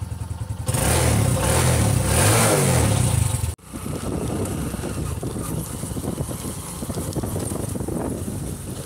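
Bajaj V15 motorcycle's single-cylinder engine idling just after starting, then revved up and down a few times. After a sudden break about three and a half seconds in, it runs steadily as the bike is ridden.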